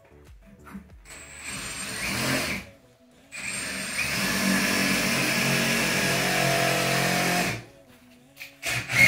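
Handheld power tool running in two goes. The first builds up over about a second and a half and stops. After a brief pause, a second, steadier run lasts about four seconds.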